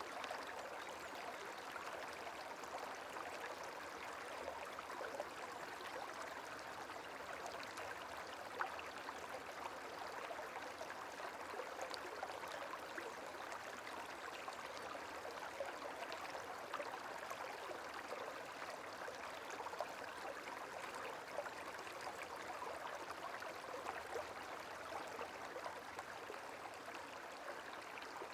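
Gentle running water trickling steadily, with faint little plinks scattered through.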